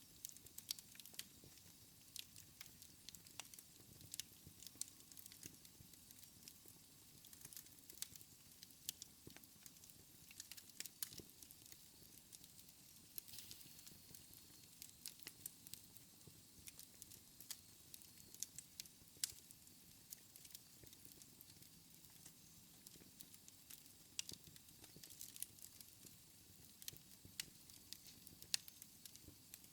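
Wood fire in a fireplace crackling faintly: irregular sharp pops and snaps, several a second, over a soft low hiss.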